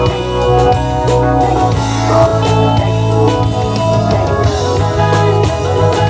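A band playing rock music live: drum kit, electric guitar and bass, with no singing.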